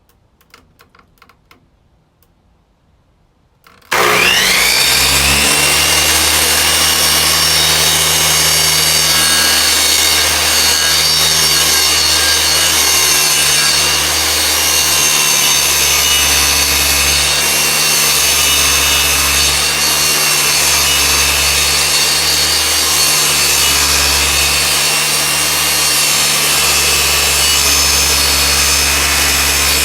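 After a few faint clicks, an electric power saw starts about four seconds in, spins up with a quick rising whine, and runs steadily as it cuts through wood.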